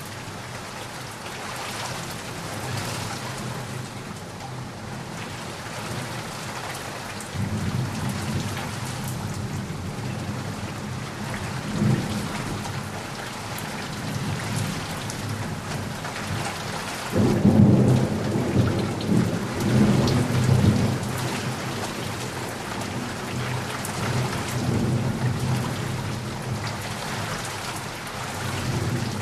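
Heavy rainstorm: steady rain falling throughout, with thunder rumbling in about a quarter of the way through, a sharper clap a few seconds later, and the loudest rolling peal a little past halfway before it dies back to rain.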